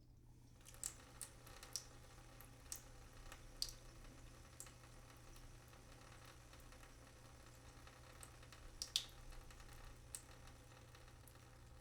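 Water dripping from a leaking sink: single drops falling at irregular intervals, several in the first few seconds and another cluster about nine seconds in, with a gap between, over a faint steady low hum.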